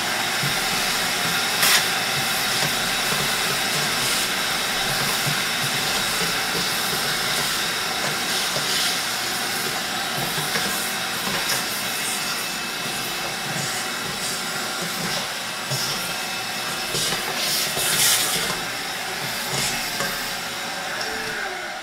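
Vacuum cleaner running steadily through its hose wand, sucking up drilling debris around the holes in a plastic tote lid, with a couple of brief louder crackles about two seconds in and again near the end.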